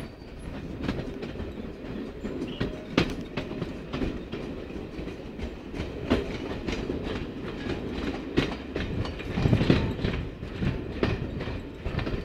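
Railway carriage wheels rolling over pointwork and rail joints: irregular sharp clicks over a steady rumble. Gusts of wind buffet the microphone near the end.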